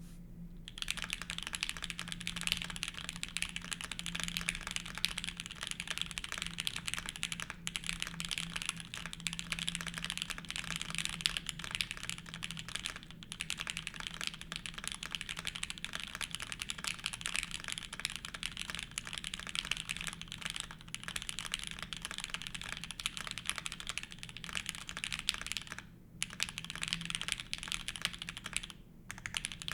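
Fast continuous typing on a mechanical keyboard with Gateron Deep Ink linear switches, lubed with 3204 and fitted with 62g progressive springs, under GMK Modern Dolch keycaps on an aluminium plate: a dense stream of key clacks. There are two brief pauses near the end.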